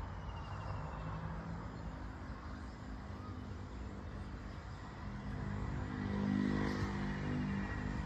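Low rumble of motor traffic, with a vehicle's engine hum coming in about five seconds in and loudest around six to seven seconds.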